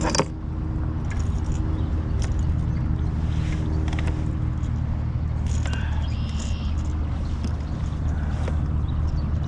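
Steady low drone of a boat motor, with a pitched hum that fades out about halfway through, and a few light knocks and splashy hisses over it.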